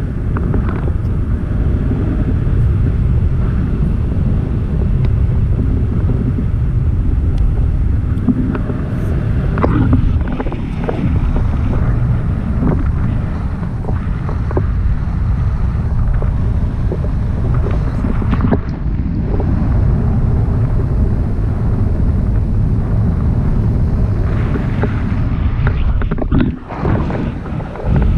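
Wind buffeting the microphone of an action camera held out on a pole in paragliding flight: a loud, steady low rumble of rushing air, easing for a moment near the end.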